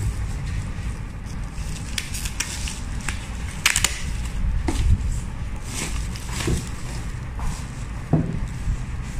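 Plastic packaging bag crinkling and rustling as hands handle and pull it, with irregular sharp crackles over a steady low rumble.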